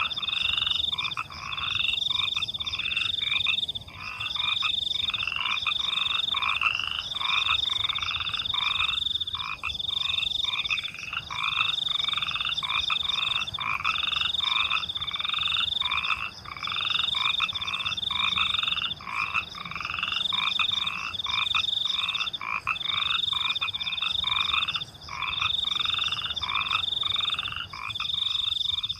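A chorus of frogs croaking in rapid, repeated calls over a continuous high trilling of crickets.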